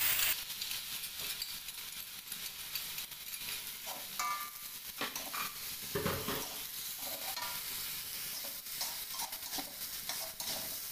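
Chopped long beans and boiled eggplant sizzling in hot oil in a metal wok, stirred and scraped with a metal spatula, with scattered clinks and scrapes of the spatula against the pan.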